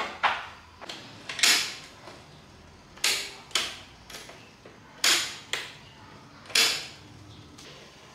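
A series of sharp knocks and clacks of hard objects being handled, about eight in all and often in pairs half a second apart. The loudest comes about one and a half seconds in.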